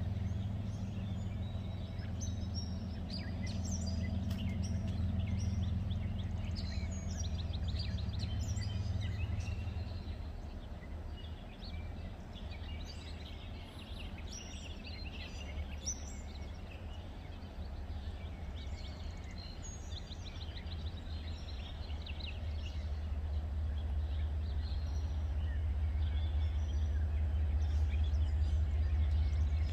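Small birds chirping and calling over a steady low rumble, which grows louder near the end.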